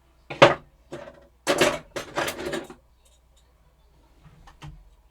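Metal hand tools clinking and knocking as they are picked up and moved about in a tool chest till: one sharp knock, then a quick run of clattering, then a few faint clicks near the end.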